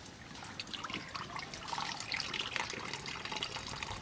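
Whey trickling and dripping from a cloth bundle of freshly washed chhena into a steel bowl of liquid, as the curds are drained of water. The splashing grows heavier about halfway through.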